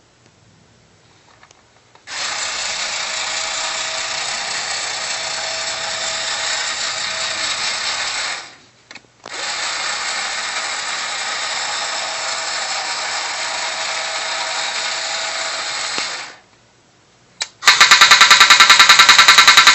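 The small electric motor and gearing of a 1960s Rosko remote-controlled tin toy tank whir steadily in two runs of several seconds with a short pause between, as the triple-barrelled turret swings and its guns change elevation. Near the end a much louder, fast, even rattle starts: the pom-pom gun's firing noise.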